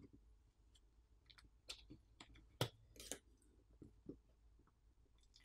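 Faint, irregular clicks and light scrapes of a small pry tool working on a smartphone's insides, about eight spread over a few seconds, with a sharper click right at the end.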